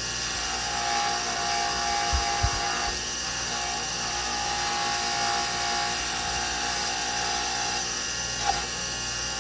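Motor-driven buffing wheel spinning steadily while polishing a brass French horn tuning slide with polishing compound, its steady whine dipping briefly about three seconds in and again near the end.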